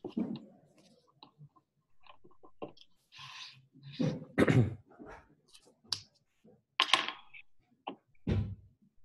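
Irregular clicks and taps with a few louder dull thumps, about halfway through and near the end: desk and handling noise picked up by a participant's open microphone on the call.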